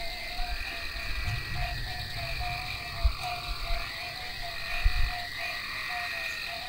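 Frogs croaking in a chorus of short, repeated calls, a few each second, with soft low thumps about every two seconds.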